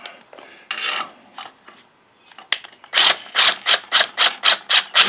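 Cordless impact driver hammering a bolt home in the engine's crankcase, a rapid even run of about five impacts a second that starts about three seconds in. Before it come light clicks and a brief scrape as the tool and bolt are handled.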